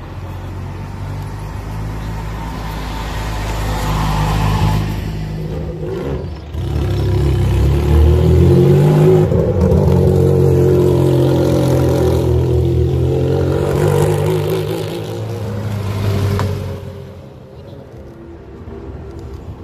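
Race car engines passing on the circuit, accelerating with the pitch shifting as they go by. The engine sound builds to its loudest through the middle and fades away near the end.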